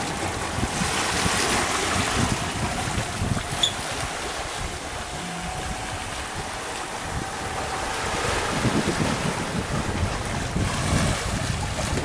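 Sailing yacht moving under sail: water rushing and splashing along the hull, with wind noise on the microphone rising and falling.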